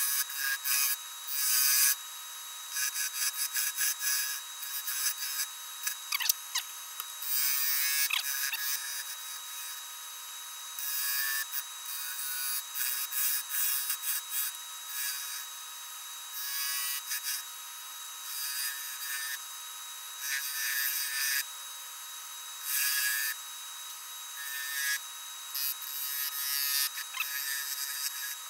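A turning tool cutting a spinning walnut blank on a wood lathe: bursts of scraping, hissing cuts that start and stop every second or two, over a steady thin whine from the lathe.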